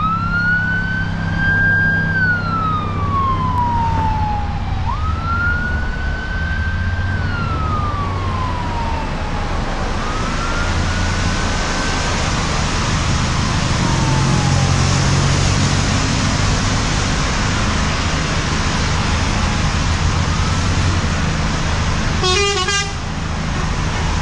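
Bus basuri horn sounding a repeated wail: each call rises quickly, holds, then slides slowly down in pitch, about every five seconds, with the later calls fainter. Under it runs a steady bus engine rumble, and near the end comes a brief rapid fluttering burst.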